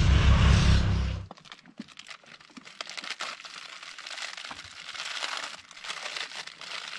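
A passing motorcycle's engine running loud and low, cutting off suddenly a little over a second in. After that, plastic bags and packaging crinkle and rustle with light clicks as gear is packed onto a loaded motorcycle.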